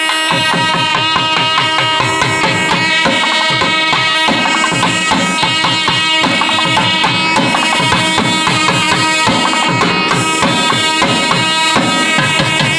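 Nadaswaram double-reed pipes playing a melody together over fast, dense thavil drum strokes: a periya melam temple ensemble.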